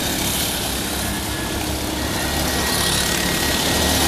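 Go-kart engines running as karts drive past on the track: a steady engine drone that swells a little near the end.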